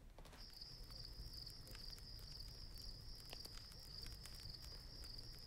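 Crickets chirping in a faint, high, steady trill that starts about half a second in, with scattered soft crackles from a log campfire.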